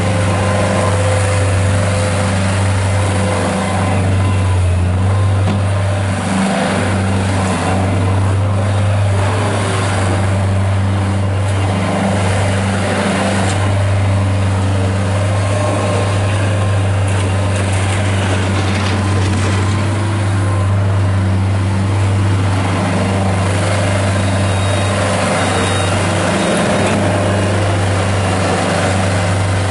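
Bobcat S175 skid steer loader's Kubota diesel engine running steadily, a constant low drone with only slight dips in level.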